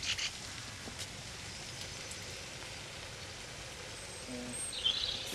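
Steady outdoor background hiss with no clear single source, and a few faint bird chirps near the end.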